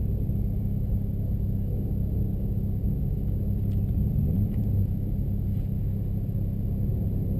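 2009 Honda Civic Si (FG2) with its 2.0-litre K20 four-cylinder running at idle, a steady low drone heard inside the cabin. The engine breathes through a custom intake and a 3-inch exhaust with resonator and muffler.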